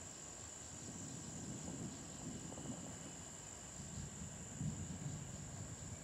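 Steady high-pitched trilling of an insect chorus, with an uneven low rumble that swells about four to five seconds in.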